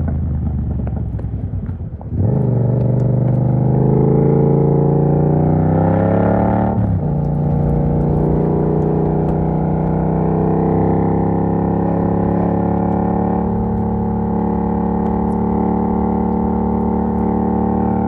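Yamaha MT-07's parallel-twin engine running through an exhaust with the dB killer removed. It slows off the throttle, then about two seconds in it opens up and the revs climb until a gear change near seven seconds in drops them, after which it runs at a fairly steady speed.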